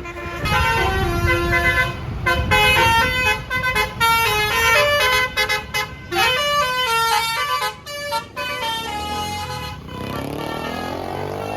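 Tour bus's basuri multi-tone air horn playing a fast telolet melody, short loud notes stepping up and down in pitch. The melody breaks off about ten seconds in, leaving a lower, steadier sound.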